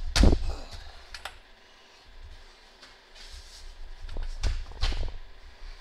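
Two loud knocks right at the start, then scattered light clicks, with another cluster of knocks and clatter about four to five seconds in.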